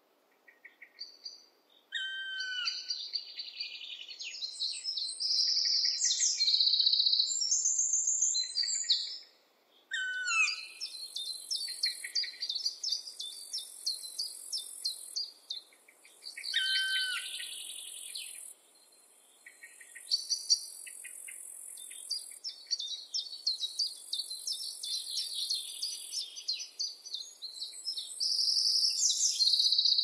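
Several songbirds singing, with overlapping phrases of whistles, trills and chirps. From about ten seconds in, a high, dry buzzing joins them and repeats in spells of two or three seconds.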